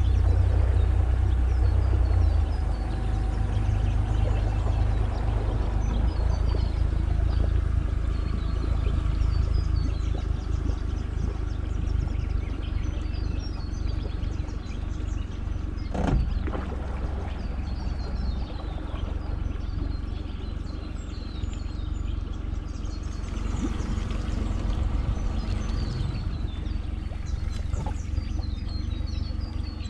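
Small boat's outboard motor running at low speed as the boat moves along, with many birds chirping over it. A single knock sounds about sixteen seconds in.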